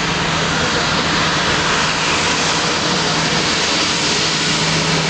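Airbus A340-600's four Rolls-Royce Trent 500 turbofans running at taxi power as the airliner taxis: a steady rushing jet noise over a low, even hum.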